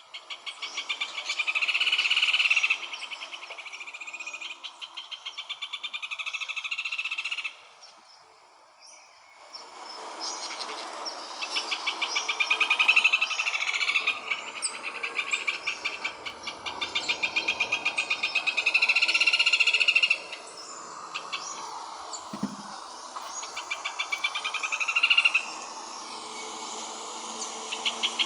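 Rufous hornero singing: loud bouts of rapid, evenly repeated notes a few seconds long, rising and falling in loudness, with a short pause about eight seconds in.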